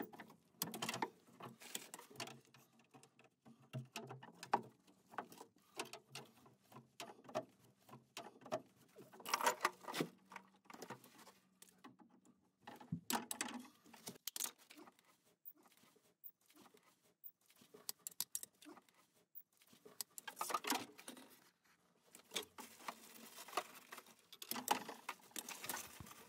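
Faint, irregular clicks, taps and rustles from gloved hands handling PEX pipe and brass plumbing fittings, with a few louder bursts of clatter.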